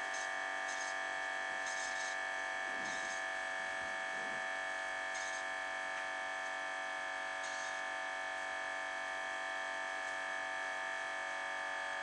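Keurig single-cup coffee brewer buzzing steadily while it brews, its pump pushing hot water through the K-cup as coffee streams into the cup. Brief hissing spurts come and go every second or two.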